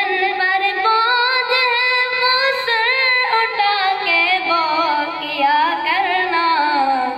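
A boy's high voice singing a naat unaccompanied into a microphone: one long ornamented phrase without clear words, its pitch wavering and sliding up and down.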